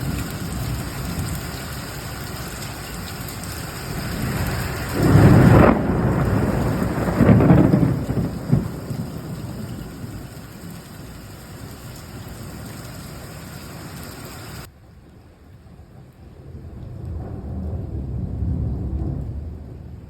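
Heavy rain falling during a thunderstorm, with two loud thunderclaps about five and seven seconds in and a lower rolling rumble of thunder near the end. The hiss of the rain cuts off suddenly about two-thirds of the way through.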